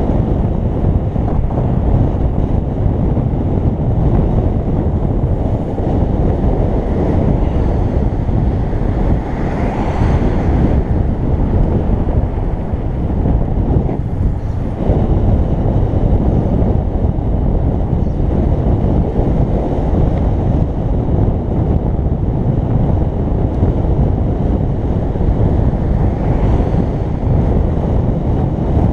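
Steady wind rush buffeting the camera's microphone while riding, with vehicle and road rumble underneath.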